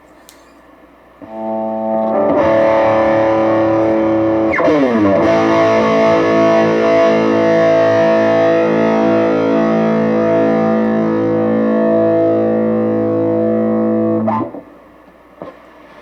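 Overdriven electric guitar through a Positive Grid Reactor 50 1x12 combo amp on a medium-drive modern alternative preset. A chord rings out about a second in, slides down in pitch a few seconds later into a second chord held for about ten seconds, then cuts off suddenly near the end.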